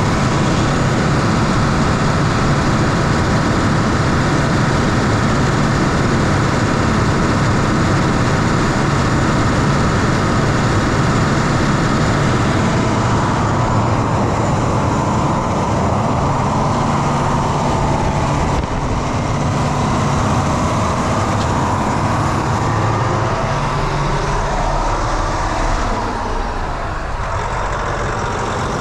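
John Deere 9430T tractor's 13.5-litre PowerTech diesel running at idle, with the rebuilt fan drive and belts turning. It runs steadily, and its note sways a little near the end.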